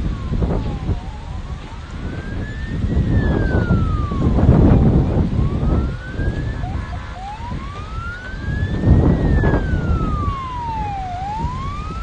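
Emergency vehicle siren wailing, its pitch slowly rising and falling every few seconds. It sounds over loud low rumbling noise that swells twice.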